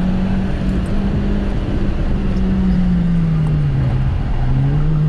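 Honda Fit's four-cylinder engine heard from inside the cabin during a hard autocross run, along with road and tire noise. The engine note holds steady, drops in pitch about three and a half seconds in as the revs fall, then picks up again near the end.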